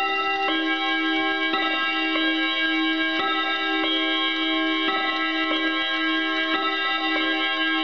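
1954 Hermle mantel clock chiming on its gong rods: a run of struck notes, a new strike about once a second, each ringing on and overlapping the next.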